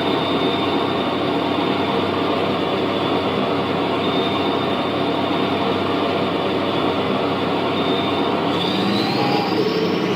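A remote-control tank's sound module playing a recorded tank engine running sound through its speaker, steady throughout, with a rising whine near the end.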